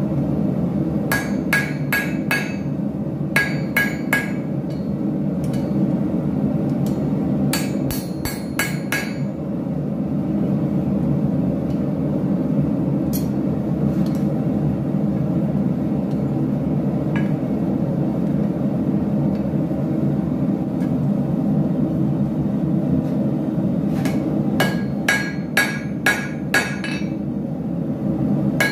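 Hand hammer striking red-hot angle iron on an anvil, in quick runs of three to five ringing blows. In the middle there is a long stretch with only the odd single blow, and another run comes near the end. A steady low background noise runs underneath.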